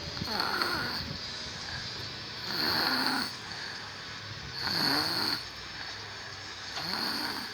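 A person snoring in sleep: four snores about two seconds apart.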